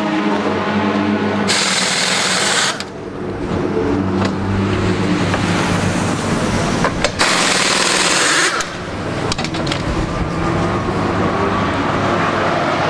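Two loud bursts of compressed-air hiss, each a little over a second long, about a second and a half in and again about seven seconds in. They come from the air lance on the Ford GT race car's pneumatic jacks. Under them runs a steady low engine hum, and a few sharp clicks follow the second burst.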